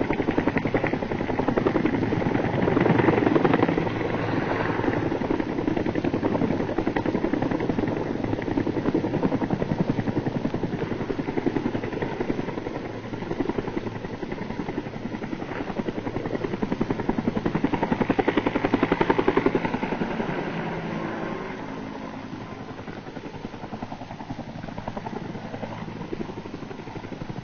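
Helicopter flying, its rotor chopping in a fast steady pulse. It grows louder around three seconds in and again near twenty seconds, then fades.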